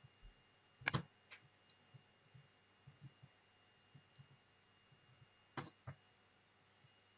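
Sparse clicks and knocks of a small robot car's chassis and parts being handled and set down on a tabletop: a sharp one about a second in, a quick pair near the end, and faint taps between.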